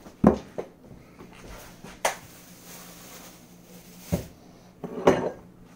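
Kitchenware being handled: a handful of short, separate knocks and clatters spread over several seconds.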